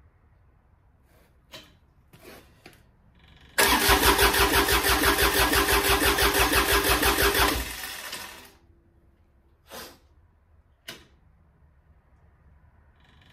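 The rebuilt Yanmar 3TNA72UJ three-cylinder diesel of a John Deere 755 tractor turned over by its starter for about four seconds, a loud, even, rhythmic chug of compression strokes that stops abruptly without the engine firing. The injector lines are cracked open and the glow plugs unplugged, so it is only cranking to build oil pressure and bleed air from the fuel system. A few faint clicks and knocks come before and after.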